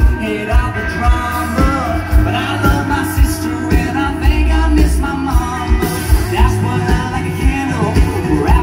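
Live country-rock band playing loudly through a festival PA, with drums keeping a steady beat under guitars and a melodic lead line, heard from in the crowd.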